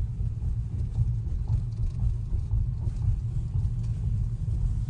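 Low, steady road and tyre rumble inside the cabin of a slowly moving electric car, with no engine note.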